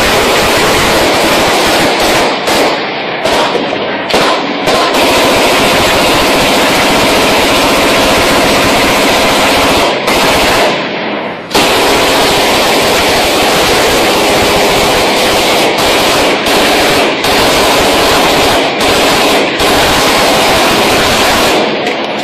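Heavy automatic gunfire from several rifles and machine guns firing at once, loud and almost continuous, with a short lull about eleven seconds in before it resumes abruptly.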